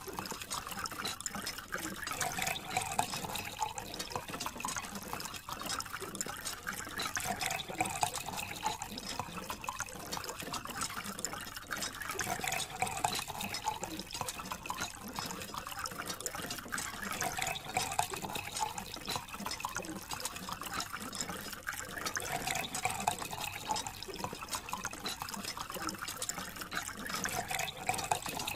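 A thin stream of water from a small tube running steadily onto a toy backhoe loader and splashing into a shallow puddle.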